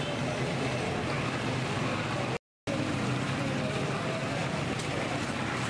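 Fish deep-frying in hot oil in a large iron karahi: a steady sizzle that drops out for a split second about two and a half seconds in.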